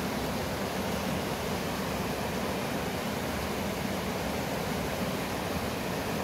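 A small, fast mountain river rushing steadily over rocks and boulders in shallow rapids.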